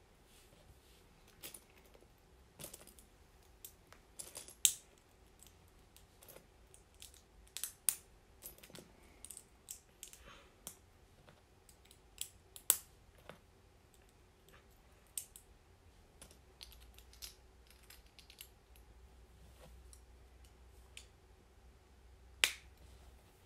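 LEGO hinge and clip plates clicking as they are handled and pressed together: irregular small plastic clicks, with a few louder snaps.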